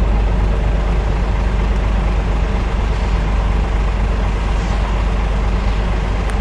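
Scania R truck's diesel engine idling steadily with a deep, even rumble.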